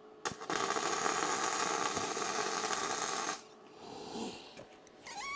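Electric arc welding on the steel seat frame: a steady crackling weld of about three seconds, then a shorter, weaker burst. Near the end there is a short pitched call that bends up and down.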